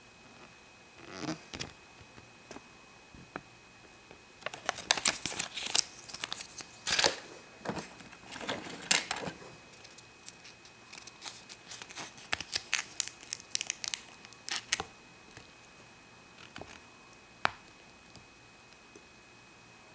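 Crinkling and crackling of a rolled paper sheet handled, unrolled and unfolded by hand, in irregular bursts that are loudest in the first half and thin out to a single sharp crackle near the end.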